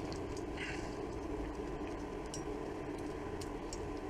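Steady low background hum with a few faint light clicks and taps, as of small objects and leads being handled on a workbench.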